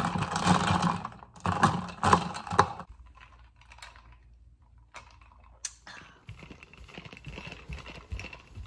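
Coffee and creamer shaken hard in a lidded plastic shaker cup, a dense clattering rattle that stops about three seconds in. A couple of sharp clicks follow, then soft irregular footsteps near the end.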